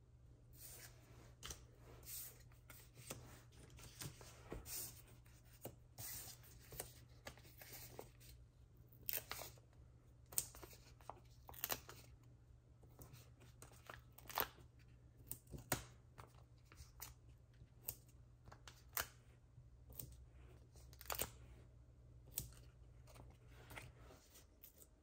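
Paper and card being handled during hand card-making: a string of small irregular clicks, taps and rustles over a low steady hum that stops near the end.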